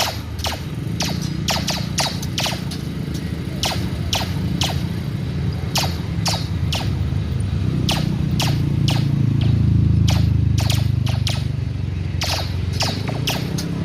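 Sharp cracks like gunshots, repeating at uneven spacing a few times a second, from work on the railway track. Under them runs a steady low engine drone that swells to its loudest about ten seconds in.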